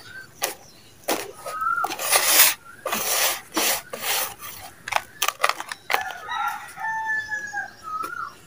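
Hands digging and raking through gritty soil in a plastic tub: a string of loud, crunchy scraping rustles. A rooster crows about six seconds in, and short chicken calls sound now and then.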